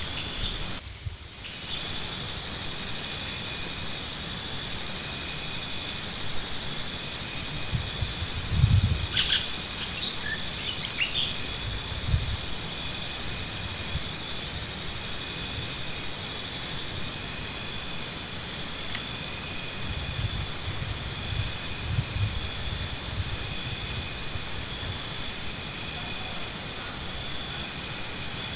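Insects singing: a high, pulsing trill that comes in bouts of about four seconds, separated by similar gaps, over a steady high hum. A dull low thump about eight and a half seconds in.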